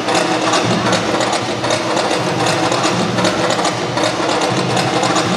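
Synchronized swimming routine music with a quick, steady beat, played over a pool's loudspeakers.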